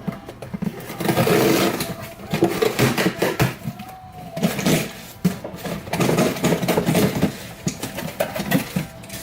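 Plastic shipping wrap crinkling and rustling as it is handled, in long irregular stretches with a short pause near the middle.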